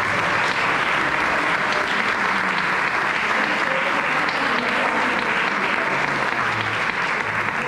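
Audience applauding, a steady round of clapping from a roomful of people.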